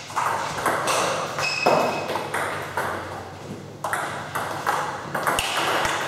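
Table tennis ball clicking off the rackets and the table in play: a string of sharp, irregularly spaced hits, each with a short echo off the hall.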